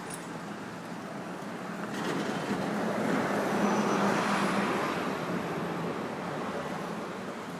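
Street traffic with a motor vehicle passing close by: its noise swells from about two seconds in, peaks around four seconds and fades away.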